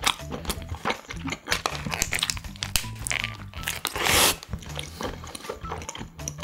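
Close-up chewing of a toasted sandwich, with crisp crunchy bites and wet mouth sounds. About four seconds in the paper wrapper crinkles loudly.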